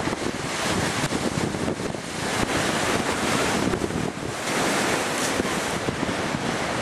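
Strong wind buffeting the microphone over the rush of rough sea waves, the noise swelling and easing in gusts.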